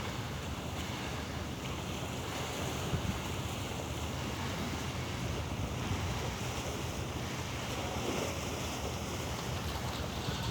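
Steady wash of sea waves with wind buffeting the microphone.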